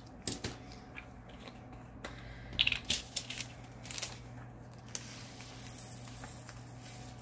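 Plastic being handled: crinkling small plastic bags and clicking plastic storage containers, a run of scattered clicks and short rustles with the busiest cluster about two and a half seconds in.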